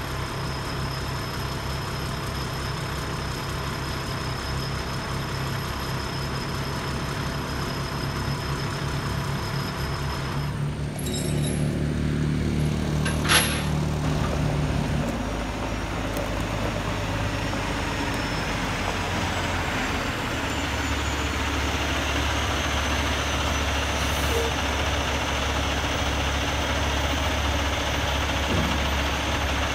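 Heavy diesel truck engine idling steadily. About eleven seconds in, its note rises and grows louder for a few seconds, with a single sharp click a couple of seconds later.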